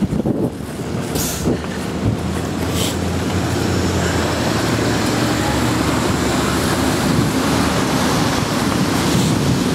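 City bus engine running close by, a steady low hum, with street traffic noise.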